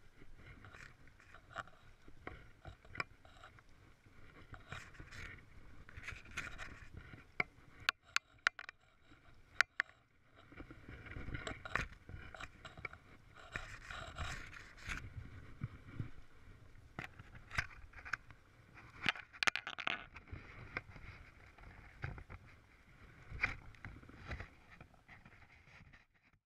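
Handling noise from a GoPro action camera being carried: irregular scraping and rubbing with sharp knocks and clicks, loudest in a cluster of clicks about eight to ten seconds in. The sound cuts off near the end.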